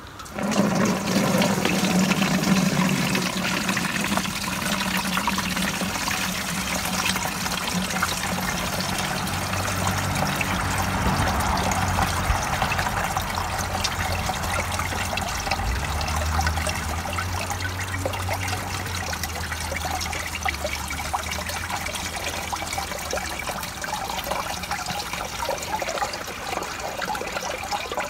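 Spent black walnut dye bath being drained off dyed wool: dark liquid pouring from a black enamel pot through a metal colander into a plastic bucket, a steady splashing stream that begins abruptly and keeps on.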